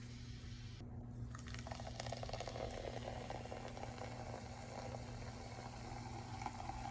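Sprite soda fizzing: a steady fine crackle of carbonation bubbles that sets in a little under two seconds in.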